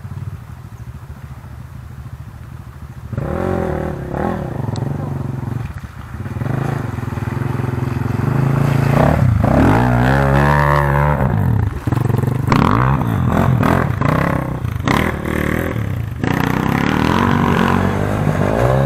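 Enduro dirt bike engines revving up and down as riders come through a muddy track. The sound grows about three seconds in and is loudest about halfway through, as one bike is ridden hard right past.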